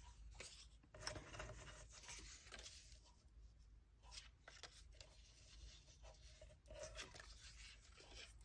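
Faint rustling and sliding of paper: pieces of die-cut patterned paper and cardstock being picked up and laid onto a card base, in short scratchy strokes.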